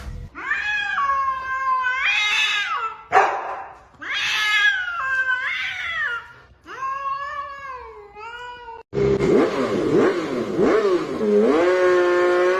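Cat yowling in long, wavering, drawn-out calls, about four of them, the last one over a steady background hiss.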